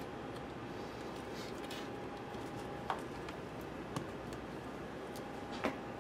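Three light clicks, the last the loudest near the end, as hands settle the DVD drive and cables inside an open MacBook Pro's aluminium case, over a steady faint hiss.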